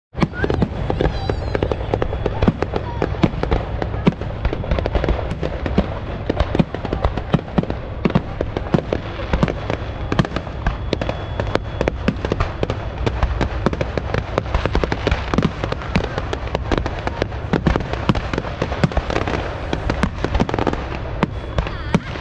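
Fireworks display: a continuous barrage of aerial shells bursting, with many sharp bangs a second overlapping with crackling.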